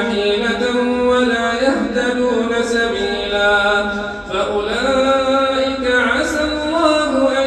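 An imam reciting the Quran aloud in a melodic maqam style, drawing out long held notes that slide and step in pitch, with a short breath about four seconds in.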